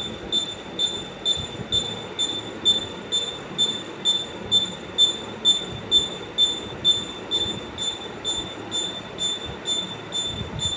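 A high-pitched squeak repeating evenly a little over twice a second over a steady rushing noise, like a part squeaking once per turn of a rotating device.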